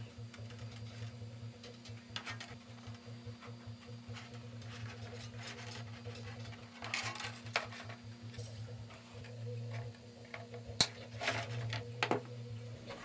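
Small clicks and taps of needle-nose pliers bending and handling thin steel wire on a workbench, with one sharp click late on, over a steady low hum.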